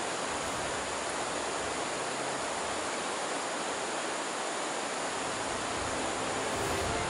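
Fast river water rushing over rapids, a steady even roar. Music fades in near the end.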